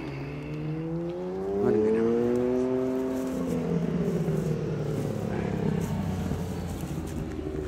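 A motorboat engine running steadily as a boat passes on the canal. Its pitch glides slowly up over the first few seconds, then drops to a steadier lower note about three and a half seconds in.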